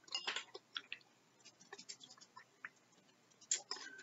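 Quiet chewing of a mouthful of chicken noodle soup, with scattered small wet mouth clicks and a few light clicks of a spoon against the ceramic bowl.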